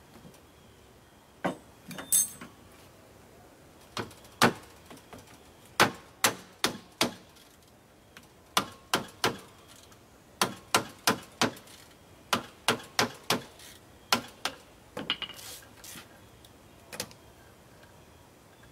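Hammer blows on the alternator of a Kohler 14RESA generator: about two dozen short, sharp knocks, mostly in quick runs of three to five with brief pauses between.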